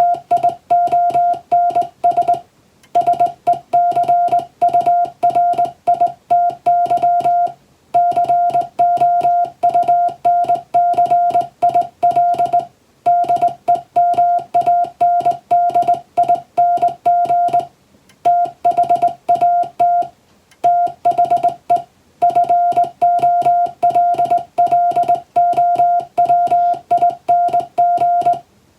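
Morse code: a single steady beep keyed on and off rapidly in dots and dashes, with a short pause between groups about every five seconds. It is English-text Morse (CW) sent at speed for copying practice.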